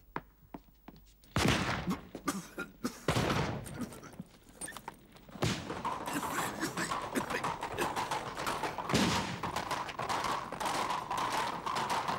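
Flintlock pistol gunfire in a fight: loud single shots about a second and a half in and again about three seconds in, then from about five and a half seconds a continuous din of further shots and commotion.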